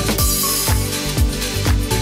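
Electronic background music with a steady beat, about two beats a second, and a cymbal crash at the start.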